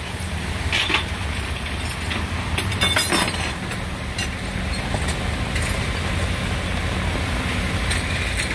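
Steady low rumble of a running flatbed tow truck, with a cluster of metallic clinks about three seconds in.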